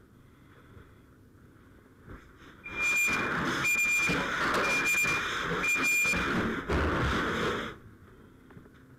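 A loud rushing noise starts about three seconds in and lasts about five seconds, with four short high-pitched beeps at an even pace of about one a second running over it.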